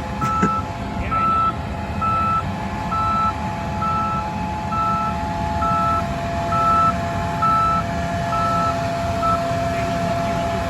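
Vehicle reversing alarm beeping at a steady single pitch, about one beep a second, eleven times, stopping near the end, over the steady drone of running farm machinery.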